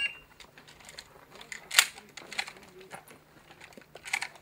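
A shot timer's start beep ends at the very start, followed by scattered sharp clicks and knocks, the sharpest about two seconds in, as the shooter moves off and handles his shotgun before firing.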